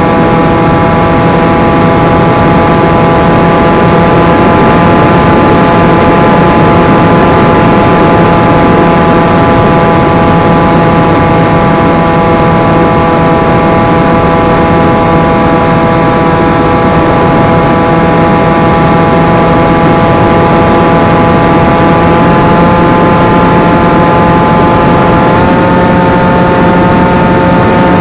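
Electric motor and propeller of a one-metre FPV flying wing in flight, heard from its onboard camera: a loud, steady whine over rushing air noise. About 25 seconds in, the whine steps up slightly in pitch as the motor speeds up.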